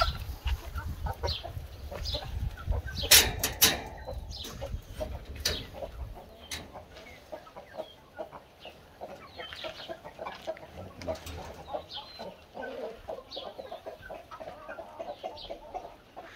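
Brahma chickens clucking in short, scattered calls. A low rumble runs through the first six seconds, and a few sharp knocks come about three seconds in.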